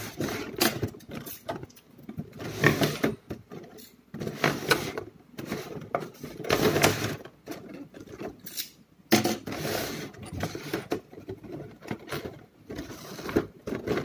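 Hard clear plastic accessory case being handled and opened: irregular plastic rattles, clicks and rustles, with short pauses between them.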